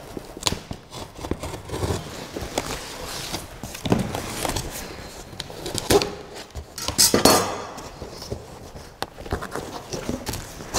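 Handling of a cardboard shipping box: plastic packing straps pulled and slid off it, with scattered knocks and a longer scrape about seven seconds in, and the cardboard flaps being opened near the end.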